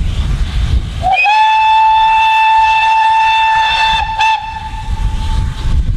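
GWR Castle Class 4-6-0 No. 5029 Nunney Castle sounding its steam whistle for departure: one long, steady single-note blast starting about a second in, loud for about three seconds, then dying away near the end.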